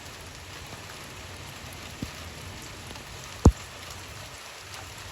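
Steady rain falling, with a light knock about two seconds in and a single louder thump about three and a half seconds in.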